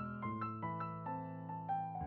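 Background music: a gentle solo piano piece, single notes struck one after another in a slow falling line over held lower notes.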